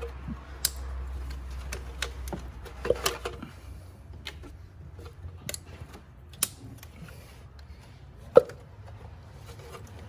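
Irregular clicks and knocks of hand tools and plastic engine-bay parts being handled, with one sharper knock near the end, over a low hum that fades out after the first few seconds.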